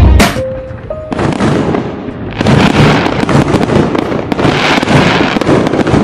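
Dubai Fountain's water jets and falling spray: a loud, dense rush of water with fine crackling that swells about two seconds in, as the last note of the show music fades.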